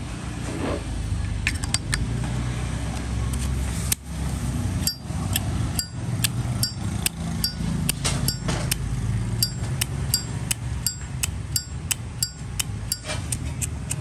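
Brass-cased Zippo windproof lighter lid being flipped open and snapped shut over and over: sharp metallic clicks, each with a short bright ring. They come sparsely at first, then steadily about two or three a second from around five seconds in, over a steady low background rumble.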